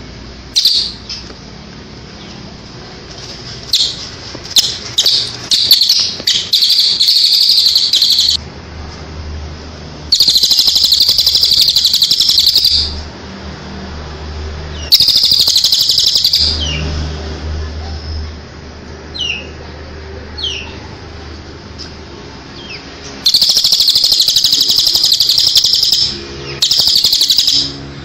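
Recorded songbird song of cililin and ciblek, played as masteran for training a caged sunbird. It comes in loud, high-pitched trilling phrases a few seconds long with pauses between, and a few short rising chirps in between, over a faint low hum.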